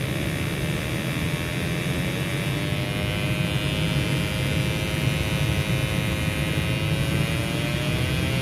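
Gas furnace running: a steady low rushing noise with a steady tone above it that dips slightly in pitch and rises again near the end.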